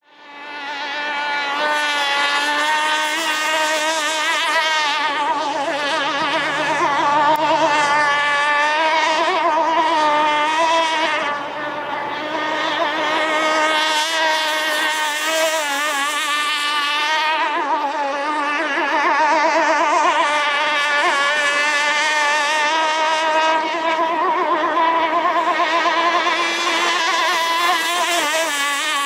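Two-stroke gas engine of an RC hydroplane running at speed on the water: a continuous high buzzing whose pitch wavers up and down with the throttle. It is a new engine on its break-in run, held mostly at part throttle with short bursts of more power.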